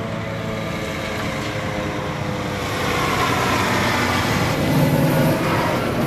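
Heavy road vehicle driving past, its engine climbing in pitch as it accelerates and loudest about five seconds in.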